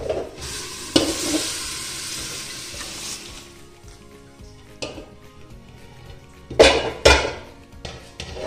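Boiled mutton and its stock poured from an aluminium pressure cooker into an aluminium karahi, hissing for about two seconds as it lands, then metal clanks of pot against pan, the loudest two close together near the end.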